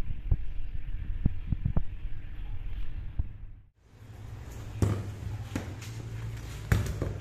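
Handling noise: a few sharp knocks as the steel motorcycle fork clamp and stem are moved on the concrete floor, over a low steady hum. The sound drops out briefly a little past halfway.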